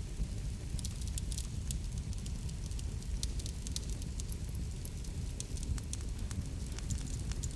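Wood fire crackling, with frequent irregular sharp pops and snaps over a steady low rumble of the flames.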